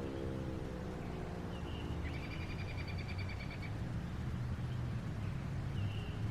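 Darley 3V8 fire siren winding down, its falling tone fading out within the first second. A bird then gives a short trill and a couple of chirps over a low, steady background rumble.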